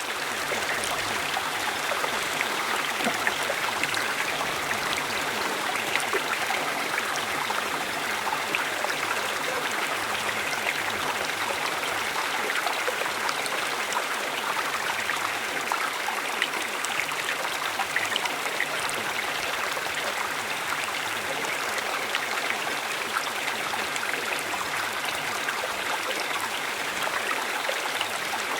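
Stream of running water flowing and trickling steadily, a constant bubbling wash of water over stones.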